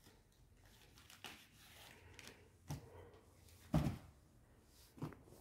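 Four short knocks and thuds of things being handled, the loudest just under four seconds in.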